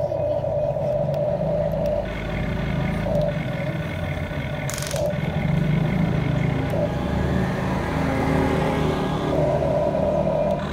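Electric motors of a Huina radio-controlled toy excavator whining as the arm lifts and the cab swings. A steady whine at the start gives way to a changing mix of motor sounds, and the steady whine returns near the end.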